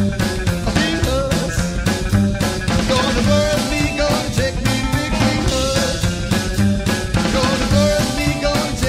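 Psychobilly rock band playing an instrumental passage: a steady drum beat with bass, and an electric guitar playing a lead line with bent notes.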